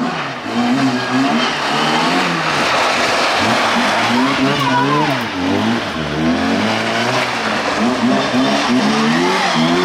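Rally car engine revving hard, its pitch climbing and dropping again and again as it is driven through a stage, loud from about half a second in.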